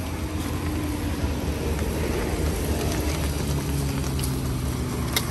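An engine running steadily close by, with a low hum that grows slowly louder. A few sharp clicks come near the end.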